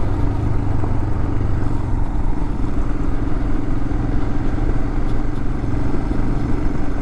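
Adventure motorcycle riding at a steady cruise, its engine running evenly under a steady hum of road noise, with no change in pace.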